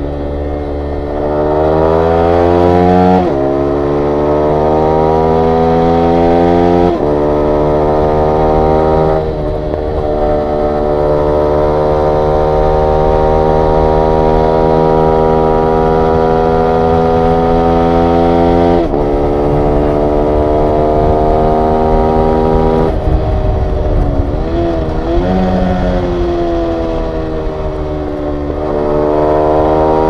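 2022 Yamaha YZF-R125's 125 cc single-cylinder four-stroke engine running through a full Akrapovic exhaust system under way: it revs up and upshifts about 3 and 7 seconds in, holds a fairly steady pitch through the middle, eases off with a wavering note around 24 seconds, then pulls up through the revs again near the end.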